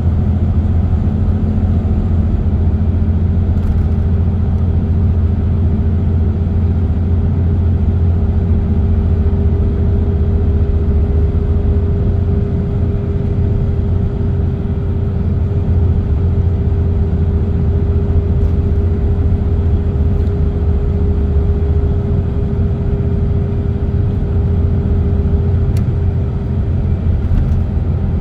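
Car cruising at a steady speed on an expressway: a steady low rumble of tyres and engine, with a constant mid-pitched hum running through it.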